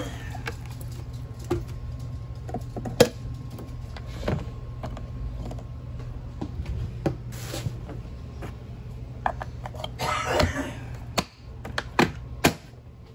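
Plastic clicks and knocks from a single-serve coffee maker being handled, its lid and pod holder set and snapped shut, the sharpest snaps about 3 seconds in and twice near the end. A steady low hum runs underneath, with a couple of short hissy rustles.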